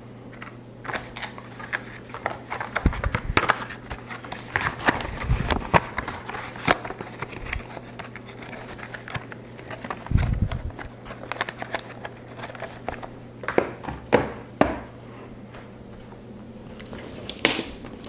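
Off-camera handling of parts and packaging: scattered crinkling, crackling and sharp clicks, with a few dull knocks, over a steady low hum.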